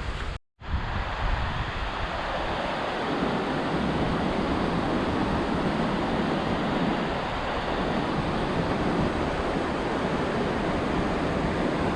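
Steady rushing noise of water, growing fuller about three seconds in, with a brief dropout to silence about half a second in.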